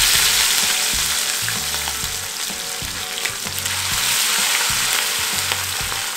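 Chicken pieces deep-frying in a pan of hot oil, a steady loud sizzle, with another piece lowered into the oil partway through.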